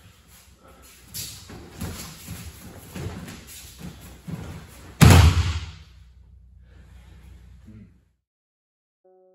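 Judoka shuffling and gripping on tatami mats, with short soft thuds and judogi rustling, then about five seconds in one heavy thud as the thrown partner lands a breakfall from a seoi nage shoulder throw.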